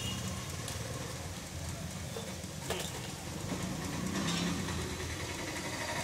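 Steady low mechanical rumble, with one short sharp knock about halfway through.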